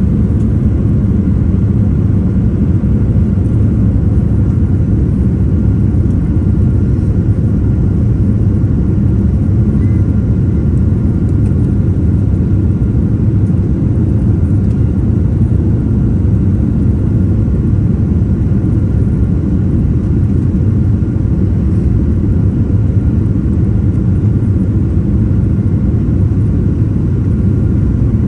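Airliner's jet engines and airflow making a steady low rumble, with a faint steady tone above it.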